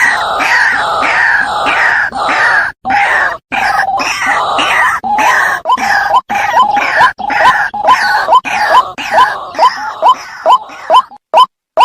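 White-breasted waterhen (ruak-ruak) calls played as a hunting lure: a loud, harsh, croaking chorus that settles into a steady series of short rising 'kwak' notes, about three a second, which come out cleaner and more spaced towards the end.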